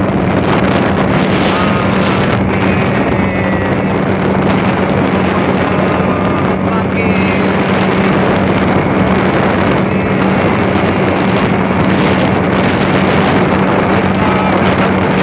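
Speedboat engine running steadily at cruising speed, heard from on board with a constant low hum under the rush of wind and water.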